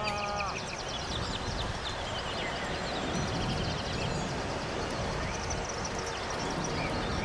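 Steady rushing roar of the Krimml Waterfalls, with songbirds trilling and chirping over it. A long call held on one pitch fades out about half a second in.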